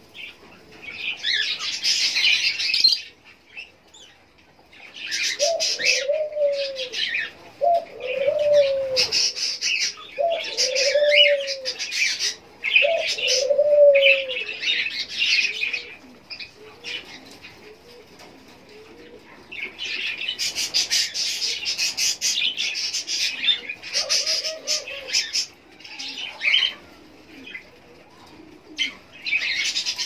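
Fischer's lovebirds chattering in bursts of rapid, shrill calls, with short pauses between the bursts. A deeper arched call also sounds about four times, starting about five seconds in, and once more later.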